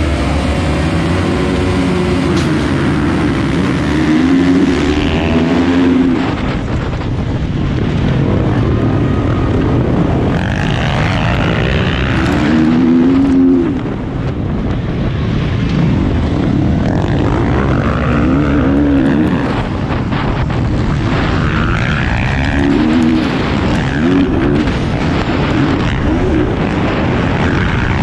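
Motocross bike engine heard from on board, accelerating hard and revving up through the gears, its pitch climbing and dropping back again and again, with the rough noise of the ride and other bikes around it.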